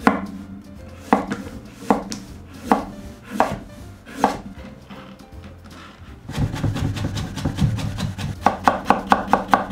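Kitchen knife slicing a peeled carrot on a wooden cutting board, with separate cuts about once a second. Near the end comes a quick even run of chops, about six a second, as the carrot is cut into thin julienne strips.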